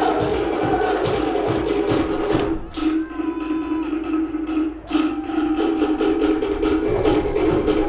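Cook Islands ura pa'u drum-dance music: sharp wooden strikes on pate slit drums in a fast driving rhythm over a steady low drum tone. The strikes stop about three seconds in and come back near the five-second mark.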